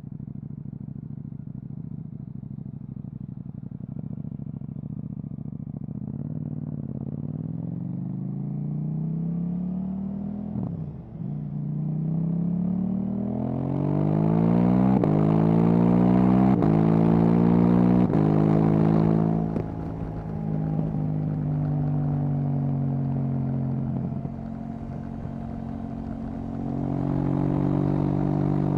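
KTM 790 Duke's parallel-twin engine through an Akrapovic exhaust, pulling up through the revs under acceleration with a brief gap about 11 s in, as at a gear change. It is loudest and highest around 14 to 19 seconds, drops back to a steadier lower note, and climbs again near the end.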